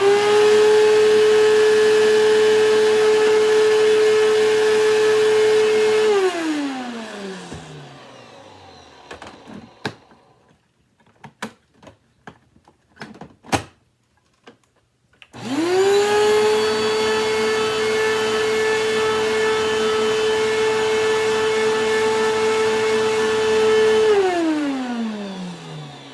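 Hoover WindTunnel bagless vacuum cleaner (model U8351-900) run twice: the motor spins up to a steady high whine, runs about six seconds, then is switched off and winds down with a falling pitch; after a few clicks and knocks it starts again, runs about nine seconds and winds down once more. Its suction is weak, which the owner suspects is a clog.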